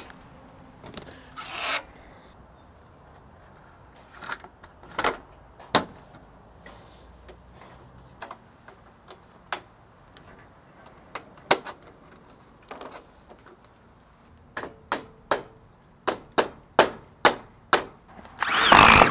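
Hand tools working a standing-seam metal roof panel edge: scattered metal clicks and short scrapes, then a run of about nine sharp hammer taps on the metal, two to three a second. Just before the end comes a loud noisy burst lasting about half a second.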